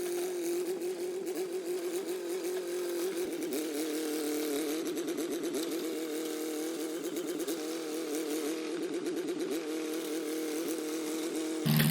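Gasoline engine of a small 1950s crawler bulldozer running steadily, its pitch wavering up and down in the middle of the stretch. Near the end the sound switches abruptly to a lower, louder engine note.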